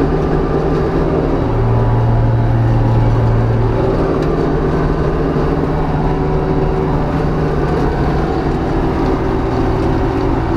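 Ursus 3502 tractor's diesel engine running steadily while mowing orchard prunings, its drone swelling for a couple of seconds near the start.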